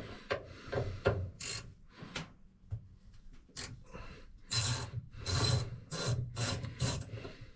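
Ratcheting driver with a PH2 Phillips bit clicking in short rasping bursts, one for each back-and-forth stroke, as it unscrews the handle screw of a laundry sink faucet. The strokes get louder and come in a quick run of about six in the second half.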